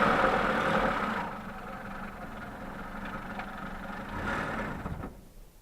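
Lada Niva's engine running with the car stuck in mud. It is loud at first, settles to a lower steady run, swells briefly about four seconds in, and cuts off suddenly shortly before the end.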